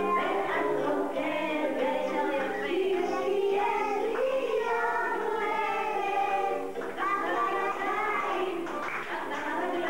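A song with singing voices and music, playing without a break.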